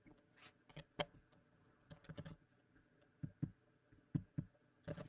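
Light, scattered clicks of computer keys and mouse buttons as values are copied and pasted: about a dozen short taps spread out, with a quick run of several about two seconds in.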